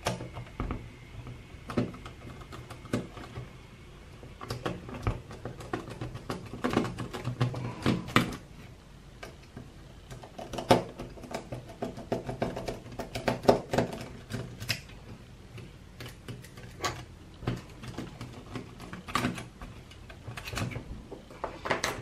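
Scattered light clicks and taps as small screws are undone with a screwdriver and a small circuit board is worked loose inside a plastic radio-control transmitter case.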